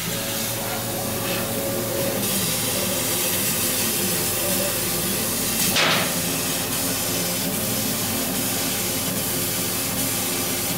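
CO2 laser cutting machine running a cut: a steady hiss of air and fans, with the gantry motors whirring at shifting pitches and a brief louder burst about six seconds in. No laser squeal is heard, as expected with freshly replaced distilled water in the chiller.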